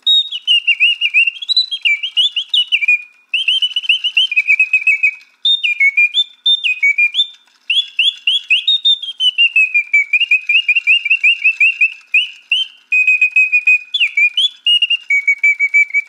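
Singing bird box playing its mechanical birdsong: a bellows-driven whistle warbling in quick trills and sliding glides, in phrases broken by short pauses.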